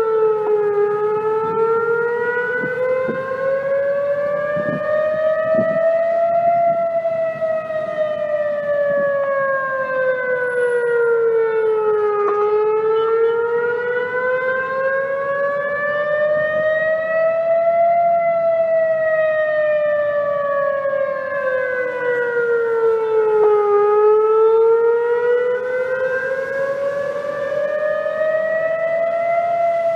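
A siren wailing, its pitch gliding slowly up and then down, each rise and fall taking about eleven to twelve seconds.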